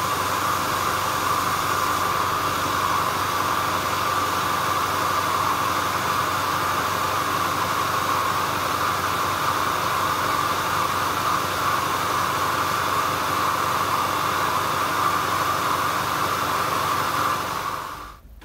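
Workshop vacuum running with its hose held at a Bridgeport milling machine's end mill, drawing in cast iron chips as the cutter machines a cast iron block; a steady, loud hiss that fades out near the end.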